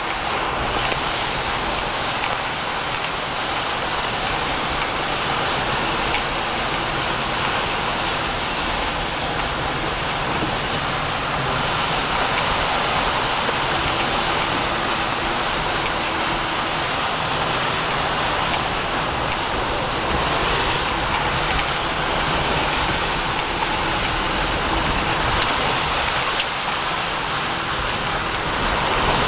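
Steady rush of mud and water spraying against the tyres and underbody of an off-road 4x4 driving through a waterlogged dirt track, heard from inside the cabin over the running engine.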